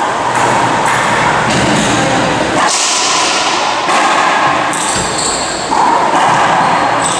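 Racquetball rally: the rubber ball smacking off the racquet strings and the court walls, a sharp hit every second or so, each ringing briefly in the enclosed court.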